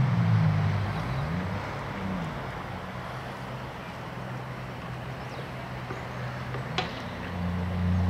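Jet ski engine running on the river, its pitch dropping and rising as the throttle changes. It fades in the middle and comes back louder near the end, with one sharp click about seven seconds in.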